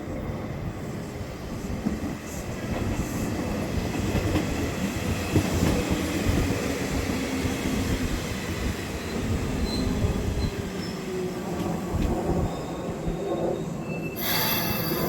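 Electric commuter train running along the track, its wheels and running gear growing louder over the first few seconds and then holding steady. A brief high-pitched wheel squeal comes near the end.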